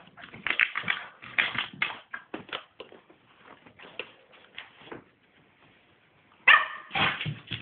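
Cairn terrier puppy playing excitedly: a run of short, irregular noises that fade to near quiet for about a second and a half, then a loud burst near the end.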